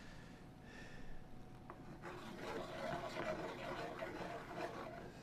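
A spatula scraping and stirring around a skillet of simmering orange and lemon butter sauce, getting louder from about two seconds in.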